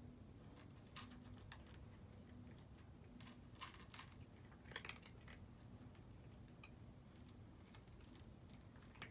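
Two cats chewing dry kibble: faint, irregular crunches and small clicks over a low hum, the loudest about five seconds in.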